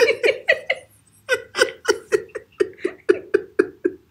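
Person laughing hard in a fit of laughter: a short run of laughs, a brief catch about a second in, then a long even string of 'ha' bursts at about four a second.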